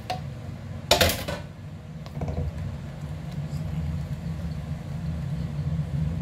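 Silicone spatula and plastic blender jar knocking against a stainless steel mixing bowl while batter is scraped out: one sharp clatter about a second in and a smaller knock a second later, over a steady low hum.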